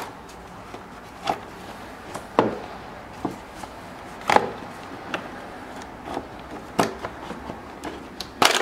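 Plastic air-box housing of a 2013 Mazda 3 knocking and clacking as it is tugged and rocked upward to pull its push tabs out of their rubber grommets: a string of separate sharp clacks about a second apart, the loudest near the end.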